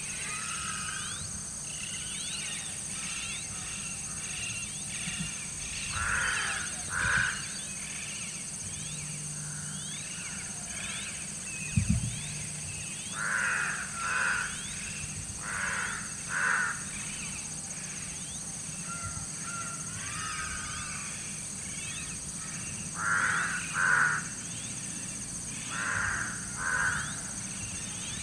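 A crow cawing two caws at a time, five times over, with small birds chirping throughout. A single sharp knock comes about twelve seconds in.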